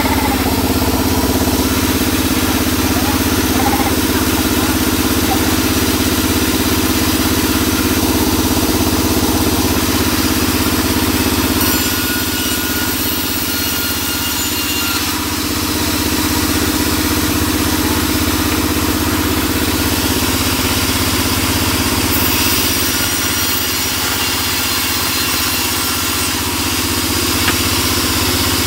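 Large sawmill band saw running with a steady hum while its blade rips a wooden plank lengthwise, with extra high hiss at times as the blade cuts.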